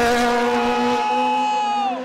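Rally car engine running hard at high revs, a steady high note; near the end part of the engine note falls in pitch.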